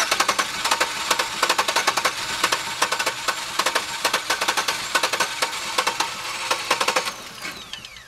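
A 2002 Chevy Venture's 3.4 V6 is cranking over on its starter motor with rapid, even pulses. Near the end the cranking stops and a falling whine follows as the starter spins down. The van has a no-start fault with no injector pulse.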